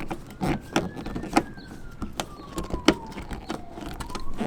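Screwdriver driving a bolt into a plastic mud flap: a string of irregular sharp clicks and knocks, with a faint tone slowly rising and falling in pitch in the background.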